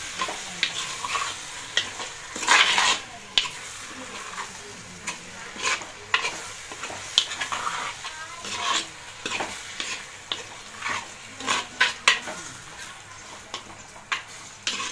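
Metal spoon stirring prawns being sautéed in oil in a clay pot, with irregular scrapes and clinks of the spoon against the pot over a light sizzle.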